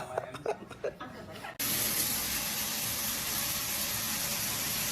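A steady hiss that starts abruptly about one and a half seconds in, preceded by faint voice fragments.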